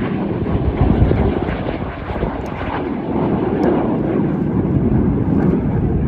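An aircraft flying by: a loud, steady rush of engine noise with no clear pitch.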